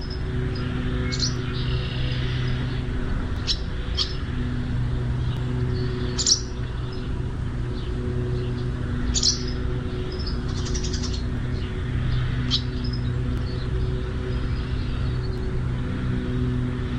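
Small birds giving short, sharp single chirps every one to three seconds, over a steady low hum.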